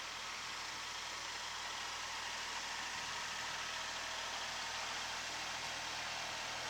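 Kubota SL28H tractor's diesel engine running steadily under a broad, even hiss.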